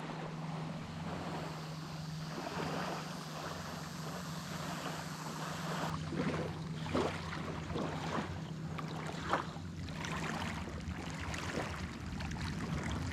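Kayak paddle strokes dipping and splashing in the water, roughly once a second, over a steady low hum.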